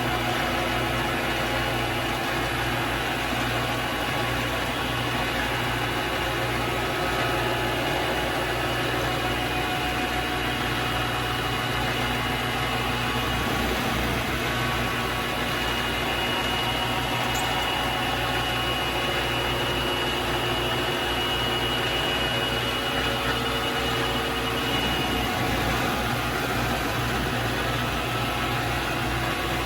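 Vevor MX400 mini lathe running steadily, its motor and gear train humming at a constant pitch, while it takes a slow facing cut on the end of a screw.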